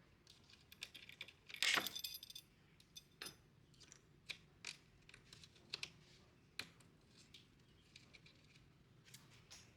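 Small metal hardware clinking as it is handled: one louder metallic jangle that rings briefly about two seconds in, then scattered light clicks and taps.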